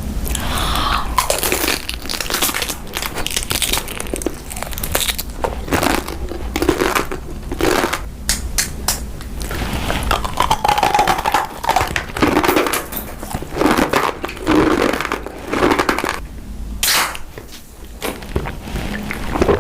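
Crunchy food being bitten and chewed close to the microphone: an irregular run of loud, crackly crunches.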